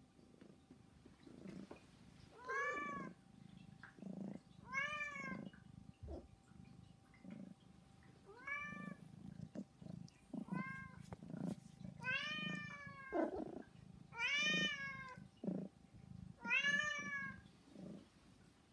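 Domestic cats meowing repeatedly to beg for food: about seven meows, each rising then falling in pitch, a couple of seconds apart and getting louder toward the end.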